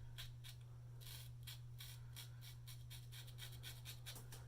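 Single-edge safety razor with a fresh GEM SE blade scraping through lathered stubble in short, quick strokes, about three a second, a faint raspy scratching.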